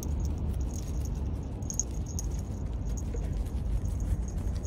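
Small metal tags on a bichon frise's collar jingling in quick, irregular clinks as the dog trots, over a low rumble.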